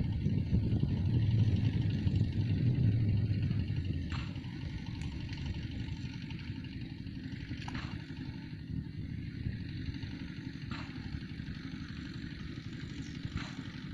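An engine running, louder for about the first four seconds and then lower and steady, with a few faint ticks a few seconds apart.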